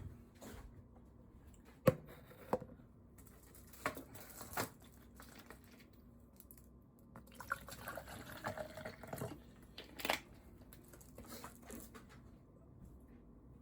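Quiet kitchen handling: a few sharp knocks and clicks of kitchenware, with a few seconds of liquid sound near the middle.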